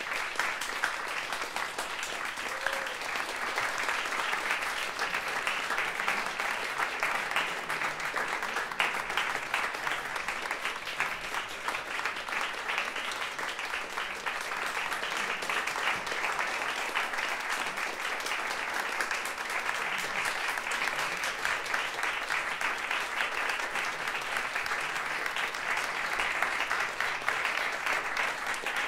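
Audience and performers applauding steadily, many hands clapping at once.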